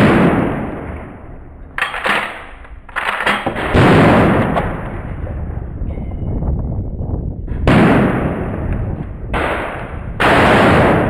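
Pump-action shotgun fired about four times, a blast every three to four seconds, each with a long fading tail. Shorter, sharper clacks fall between the first two shots.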